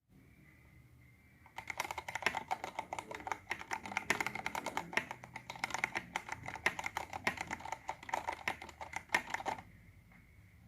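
Typing on a Vortex Race 3 mechanical keyboard with stock, unlubed Cherry MX Brown switches: fast, continuous keystrokes that start about a second and a half in and stop about a second before the end. A faint steady high whine sits underneath.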